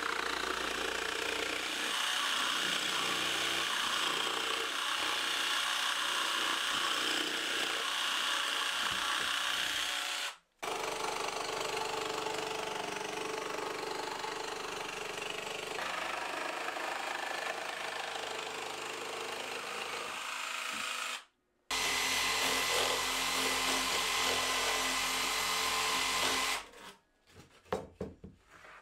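Bosch Professional jigsaw with an Expert blade cutting slots into 18 mm plywood, running steadily under load. The saw noise cuts off briefly twice and stops near the end, leaving a few short knocks.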